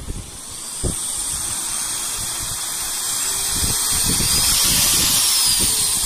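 Cordless handheld air duster/vacuum's high-speed motor running: a high, steady whine over rushing air, getting louder over the first second as it comes up to speed. A knock about a second in and a few low handling bumps later.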